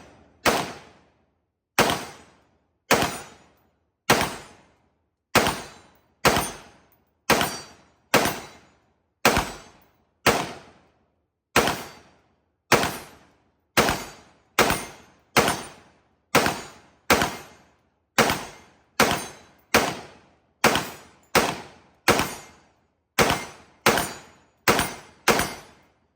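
AR-15 rifle fired in rapid semi-automatic shots, about two a second, several dozen in a row with short uneven pauses, each crack followed by a brief echo.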